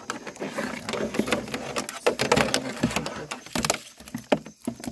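Irregular run of clicks and knocks with rustling, thinning out near the end.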